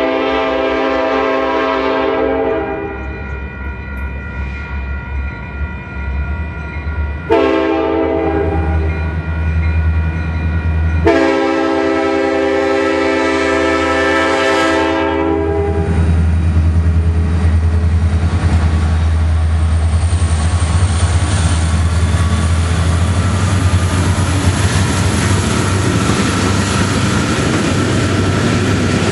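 Approaching diesel freight locomotives, including Southern Pacific units, sounding their air horn: a long blast ending about two seconds in, a short one around seven seconds and another long one from about eleven to fifteen seconds, over a low diesel engine rumble that grows. From about sixteen seconds the engine and wheel noise rises steadily as the lead units draw up and pass.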